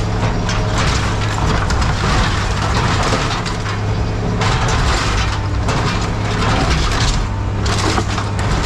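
A heavy diesel machine's engine runs steadily under dense crunching and cracking as scrap metal and plastic are crushed and torn.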